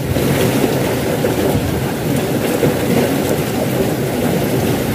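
Steady rush of water churning and pouring through a small concrete irrigation ditch.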